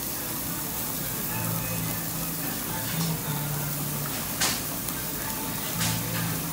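Marinated kalbi and onion sizzling steadily on a cast-iron yakiniku grill plate, with two sharp clicks near the end from metal tongs against the plate. Background music with a low bass line plays under it.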